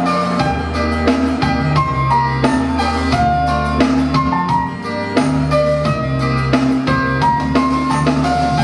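Instrumental music with a steady beat: a bass line under quick repeated melodic notes.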